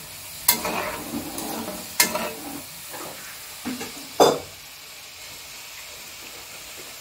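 Mathri dough pieces deep-frying in hot oil in a metal kadhai: a steady sizzle. A spoon stirring them knocks sharply against the pan three times, about half a second, two seconds and four seconds in.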